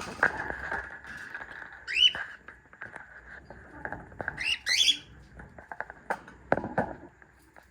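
Cockatiels calling: short rising chirps about 2 seconds in and again around 4 to 5 seconds, over a steady high tone, with a few sharp knocks near the end.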